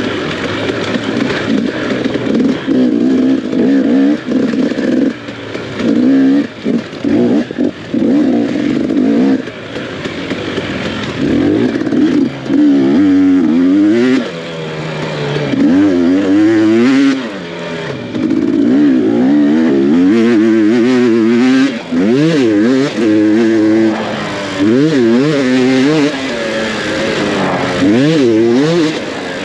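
Off-road dirt bike engine racing over rough terrain: the throttle is repeatedly opened and chopped, so the pitch wavers quickly up and down, with brief drops in loudness as the rider backs off.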